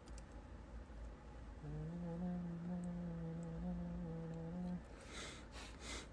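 A man humming one steady, held note for about three seconds, from about one and a half seconds in.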